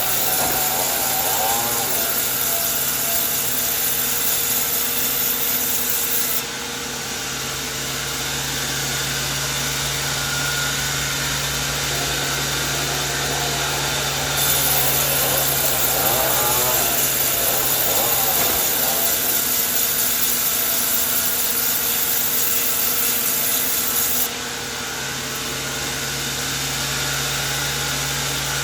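Sawmill machine running and sawing through coconut wood: a steady motor hum under continuous sawing noise, the level stepping down or up abruptly about six, fourteen and twenty-four seconds in.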